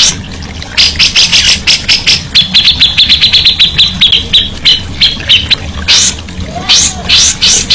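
Songbird singing loudly: rapid repeated sharp chirps, then a fast trill held on one high pitch for about three seconds, then a few more chirps. A steady low hum runs underneath.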